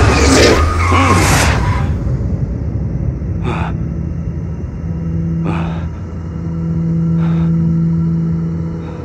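A car rushes past in the first two seconds. Then comes a steady car engine hum with a low rumble, as heard from inside a moving car, with three brief swells of noise about two seconds apart.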